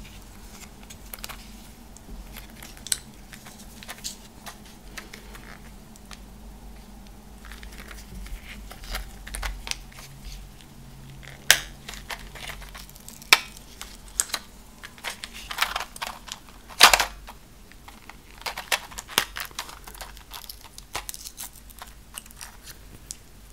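Plastic blister pack of tablets crinkled and clicked between the fingernails close to the microphone, with three sharp snaps near the middle.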